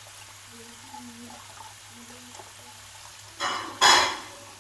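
Fish stock poured from a carton into a pan on the hob, with two short, loud gushes of liquid about three and a half seconds in, the second the louder.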